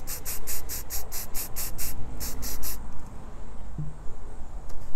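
Aerosol spray-paint can hissing in quick short spurts, about five a second, as teal paint is sprayed onto styrofoam; the spraying stops a little over halfway through.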